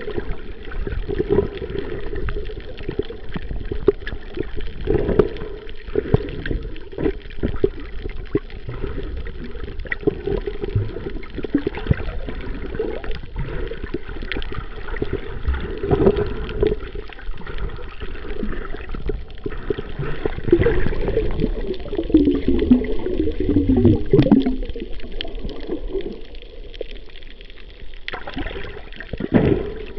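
Muffled water sloshing and gurgling, heard through an underwater camera moved along by a swimming snorkeler. There is a stretch of bubbling gurgles a little past the middle.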